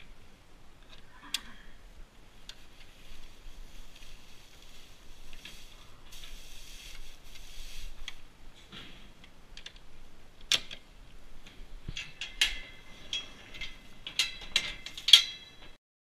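Metal-framed mesh hay rack being handled against a wooden stall wall: scraping and rustling, then a run of sharp metallic clinks and clanks, the loudest near the end. The sound cuts off suddenly just before the end.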